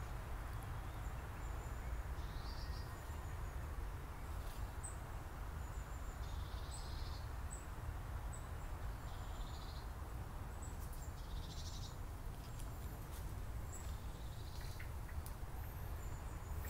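Faint outdoor ambience: a steady low rumble with small, high chirps scattered every few seconds.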